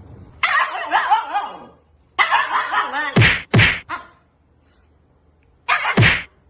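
A dog whining in wavering high cries, then giving two sharp barks about three seconds in and one more bark near the end.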